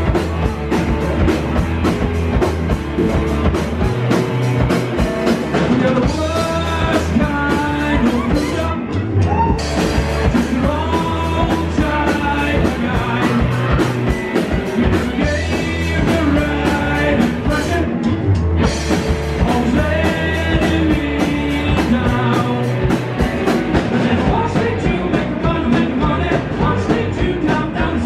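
Rock band playing live on electric guitars and drum kit, with a man singing lead vocals over the band.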